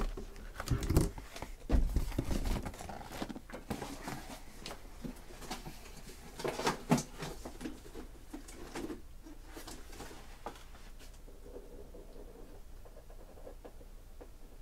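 Cardboard trading-card boxes being pulled out of a shipping case and set down by hand: a string of knocks, scrapes and cardboard rustles, busiest in the first few seconds and again around seven seconds in, then fainter handling.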